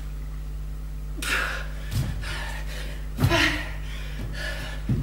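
A woman breathing hard through a bodyweight workout, with three sharp puffs of breath and dull thuds of her feet and hands landing on a wooden floor, over a low steady hum.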